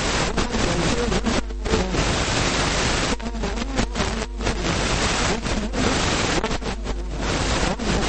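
A man's voice lecturing, largely buried under a loud, steady hiss of recording noise that drops out briefly in his pauses.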